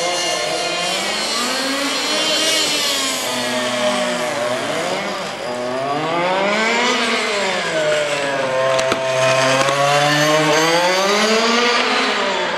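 Radio-controlled car running laps, its motor note rising and falling several times as it speeds up and slows, with a short click about nine seconds in.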